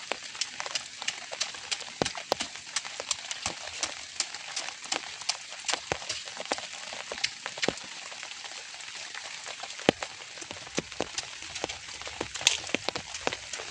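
Drizzle falling steadily, a soft hiss with individual raindrops tapping irregularly on a close surface, several taps a second and one sharper tap near the end.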